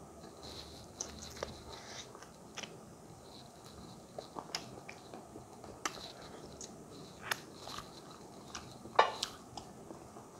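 Close-miked eating sounds of someone eating maize-flour dhido and chicken wings by hand: chewing with scattered short mouth clicks and smacks, a louder one about nine seconds in.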